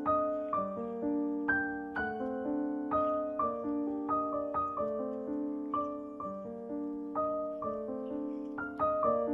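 Background music: a slow, gentle piano piece, with single notes struck about twice a second over sustained lower notes.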